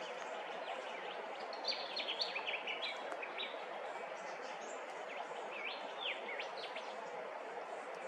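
Birds chirping and calling over a steady outdoor background hiss: a quick run of high chirps about two seconds in, and a few sharp falling whistles around six seconds in.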